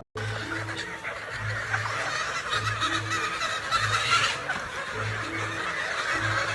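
Many chickens clucking and chattering at once, over background music with a repeating low bass pattern.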